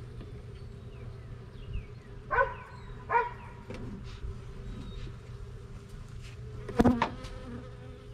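Honeybees buzzing steadily in an opened hive, with three short, louder sounds close by about two and a half, three, and seven seconds in, the last the loudest.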